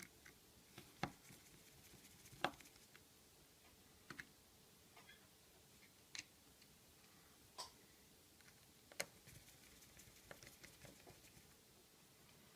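Faint, scattered small clicks and taps, about one every second or two: a small screwdriver working the three screws of a metal plate inside an iPhone 5.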